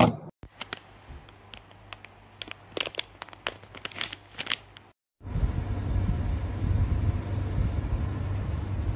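Clear plastic packaging crinkling and crackling in sharp, irregular snaps. After a short break about five seconds in, a steady low rumbling noise takes over.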